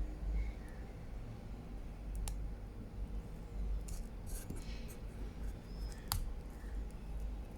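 Small plastic clicks and scraping as a Honda Vezel remote key fob is handled and worked apart by hand. There are two sharp clicks, about two seconds in and about six seconds in, with a scratchy rattle around four seconds in.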